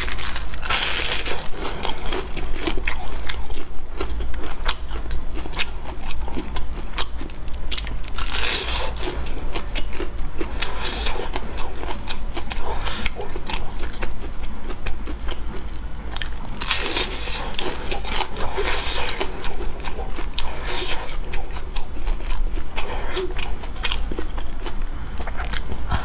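A person biting into and chewing fried glutinous rice cakes (youzhagao) close to a clip-on microphone, with many small clicks. Louder bites come about a second in, around eight seconds, around seventeen to nineteen seconds and at the end. A steady low hum sits underneath.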